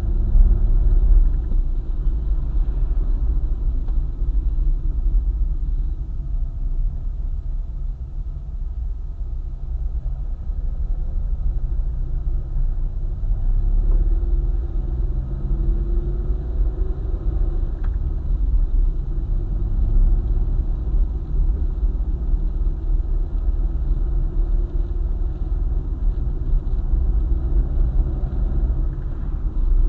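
Car driving on a highway: a steady low rumble of engine and road, with a faint engine note gliding up and down around the middle.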